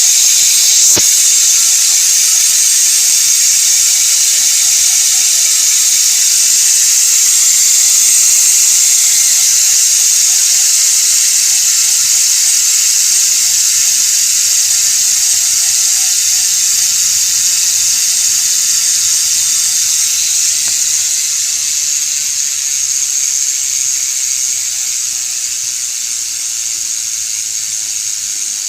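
Koozer HA04N rear hub freewheeling: its six pawls ratchet over a 72-point engagement ring so fast that the clicks blend into a loud, steady high buzz. The buzz eases off slowly near the end as the wheel slows.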